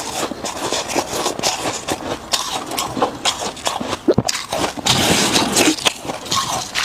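Freezer frost being bitten and chewed close to the microphone: a dense, irregular run of crisp crunches and crackles.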